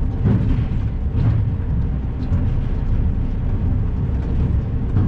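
Heavy truck's diesel engine running with a low, uneven rumble.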